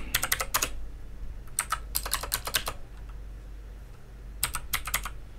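Computer keyboard being typed on to enter terminal commands, in several short runs of quick keystrokes with pauses between them.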